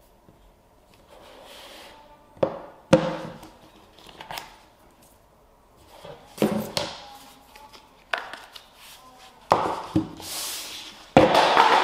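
Hands unpacking a smartphone box on a wooden table: a string of knocks and taps as the phone, the charging cable and the cardboard insert are lifted out and set down, with paper or cardboard rustling and sliding near the end.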